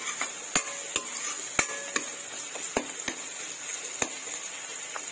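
Metal spatula scraping and clicking against an aluminium kadai as chopped green beans and onion are stirred while they fry, the clicks coming irregularly every half second to a second over a steady frying hiss.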